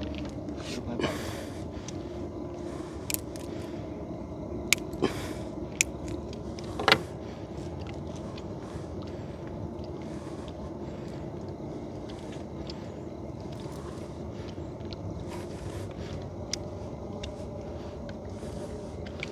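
A small boat engine running steadily, with a few short sharp knocks and clicks in the first seven seconds, the loudest about seven seconds in.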